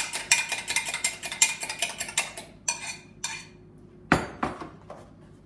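A fork beating eggs in a glass jug: quick clinking strokes, about five a second, that die away about three seconds in. A single louder knock follows a little after four seconds, as the jug is set down on the worktop.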